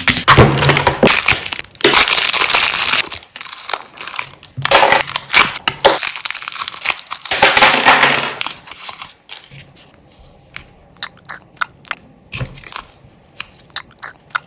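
Crushing and crunching in three long bursts, then a run of separate sharp crackles and snaps from about halfway through.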